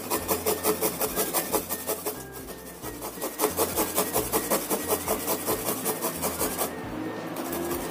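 Garlic cloves grated on a small handheld metal grater resting on a bamboo cutting board: quick, even grating strokes, about five a second, with a short pause about two seconds in, stopping shortly before the end.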